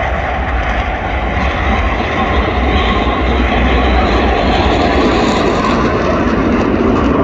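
Steady, loud jet engine noise from a pair of fighter jets flying by in formation, with a deep rumble underneath.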